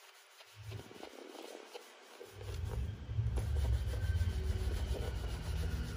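A cloth rubbing hard against a handbag while scrubbing off dirt. It is nearly quiet at first, then from about two seconds in comes a steady low rumbling scrub.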